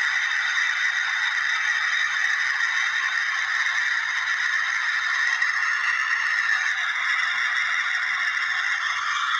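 Steady rushing jet noise from a Batik Air Airbus A320-214's CFM56 turbofans as the airliner touches down, the hollow tone in its hiss shifting slightly about six seconds in.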